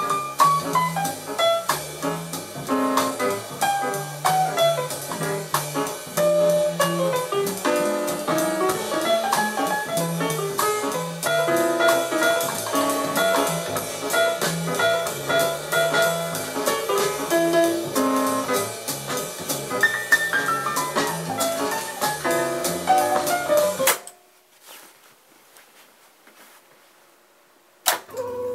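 Instrumental music with drums played back on a Teac A-4010GSL reel-to-reel tape deck. The piece cuts off about 24 seconds in, leaving a few seconds of faint quiet. A sharp click comes just before the next piece starts at the very end.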